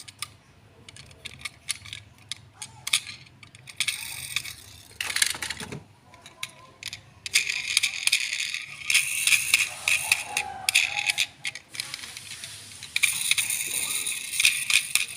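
Handling of a toy RC rock crawler car and its packaging: irregular clicks and rattles, with two louder, noisier stretches, one about halfway through and one near the end.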